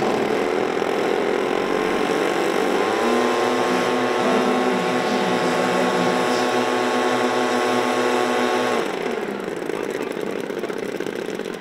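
Model aircraft two-stroke engine running. About three seconds in it revs up quickly to a steady, high-pitched full-throttle scream, then cuts off abruptly about nine seconds in, leaving quieter engine noise.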